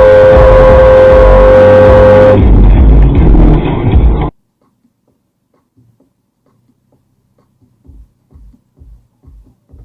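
A car horn held in one long steady blast over loud road and engine noise, stopping about two and a half seconds in. All sound cuts off abruptly about four seconds in, followed by near silence with a few faint low thumps near the end.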